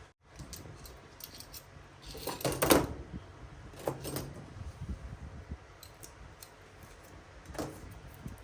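Small hard objects clinking and rattling as they are handled, with the loudest clatter about two and a half seconds in, another near four seconds and a last one near the end.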